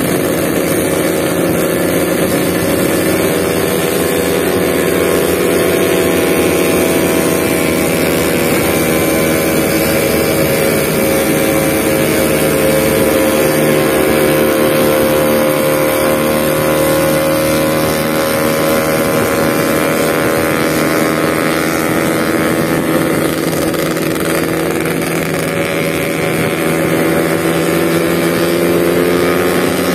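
Yamaha RX-King two-stroke motorcycle engine running under way, its pitch slowly climbing and easing off as the throttle changes, over wind and road noise.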